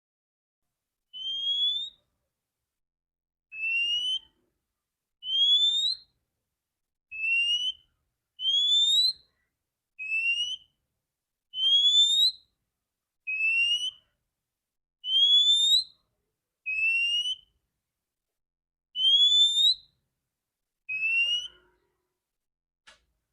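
Female oriental magpie-robin (kacer) calling: a series of twelve clear rising whistles, each under a second long, repeated about every one and a half to two seconds.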